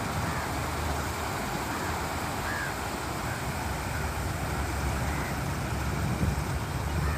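Beach ambience: a steady wash of surf under a low, fluctuating rumble, with a few faint short calls in the background.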